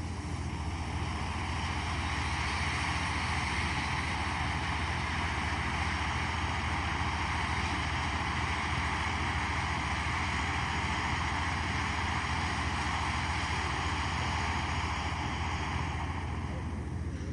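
Chamber Pot firework fountain by Miracle Fireworks spraying sparks with a steady hiss that builds about a second in, holds, and dies away near the end, over a steady low rumble.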